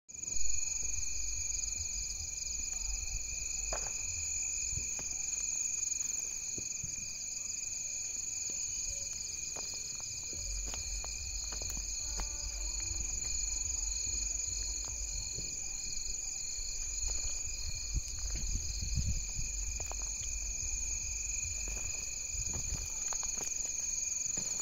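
A night chorus of crickets: several steady high trills at different pitches, one of them pulsing in a quick even rhythm, over a low rumble on the microphone. A brief thump sounds right at the start.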